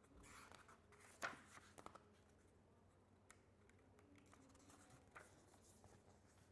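Near silence with faint rustles and small clicks of a paperback picture book being handled, its cover and first pages turned; the loudest rustle comes about a second in.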